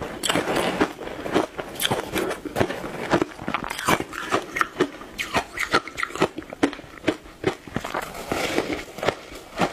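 Ice being bitten and chewed close to the microphone: a quick, irregular run of sharp crunches.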